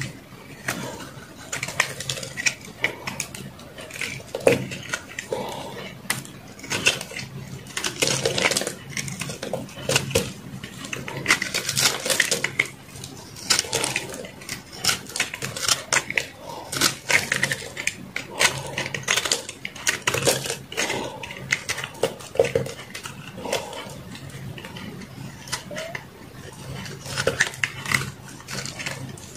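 A metal knife carving and shaving a hand-held bar of re-molded soap, giving a quick, irregular run of crisp crunching scrapes as flakes break off.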